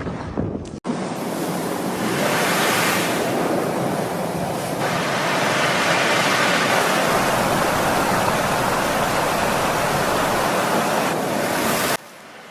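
A steady rushing roar of noise, like strong wind or surf, that starts abruptly about a second in and cuts off suddenly near the end.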